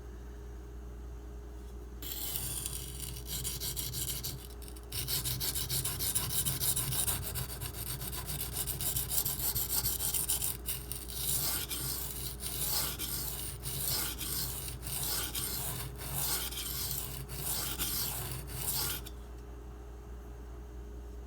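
M390 steel knife blade being ground on a coarse 240-grit silicon carbide sharpening stone, with scraping strokes. The strokes run almost continuously at first and then become separate back-and-forth strokes, stopping shortly before the end. This is the bevel being ground until a burr forms.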